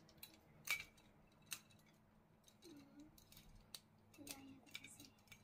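Light clicks and taps of plastic and metal parts as a ring light is fitted onto its tripod mount and its cable handled, a few sharp clicks with the loudest about a second in and a small cluster near the end.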